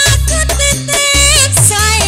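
A woman singing a Javanese love song into a microphone, her voice wavering with vibrato and ornaments, over instrumental accompaniment with a steady bass and regular percussion.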